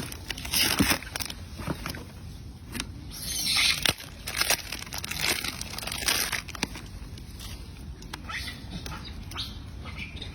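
Irregular rustling with scattered sharp clicks and taps, a louder stretch of rustling about three seconds in.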